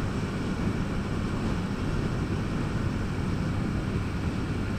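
Steady wind rush and road noise from a moving motorcycle, a Yamaha Factor 150, heavy in the low end.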